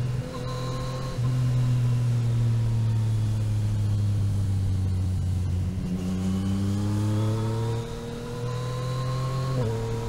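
A motorcycle engine running under way, loud from about a second in, its pitch sagging slowly for several seconds. About six seconds in the pitch climbs as the bike accelerates, then drops off as the throttle closes about eight seconds in, with a quick gear change near the end.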